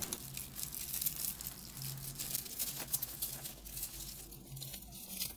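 Dry bast fibres rustling and crackling quietly as a bundle is twisted by hand and bent into a ring.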